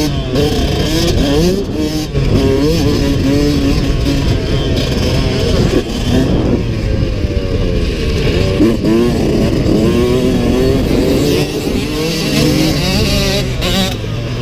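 2022 Yamaha YZ125X's two-stroke single-cylinder engine being ridden hard, its pitch rising and falling over and over as the throttle is opened and rolled off, with brief dips between.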